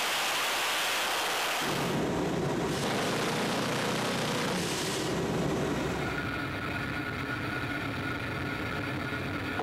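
AC-130 gunship in flight: a steady rushing of wind and engine noise, growing fuller and deeper about two seconds in.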